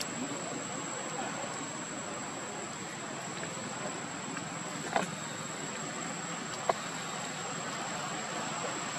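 Steady outdoor background hiss with a constant high-pitched whine, broken by two short sharp clicks, about five seconds in and again under two seconds later.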